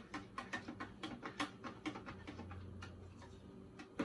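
A metal spoon stirring yeast into warm water in a small glass bowl, clicking lightly against the glass in a quick irregular run that thins out after about two seconds.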